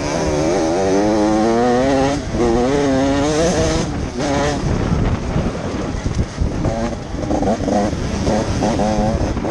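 Motocross bike's engine under the rider, revving up and down through the gears while riding a dirt track, with wind rushing over the microphone. Over the second half the engine note comes in short rises as the throttle is opened and shut.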